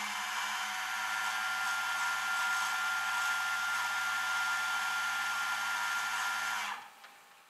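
Rollback tow truck's hydraulic winch system running: a steady hiss and whine over a low hum. It cuts off suddenly near the end.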